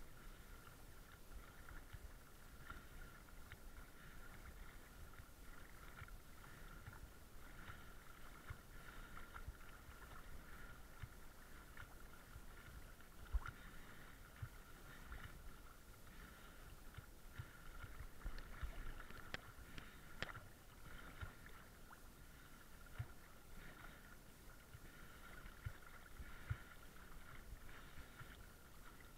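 Faint water sloshing with scattered soft knocks, under a steady faint high whine; one sharper click about halfway through.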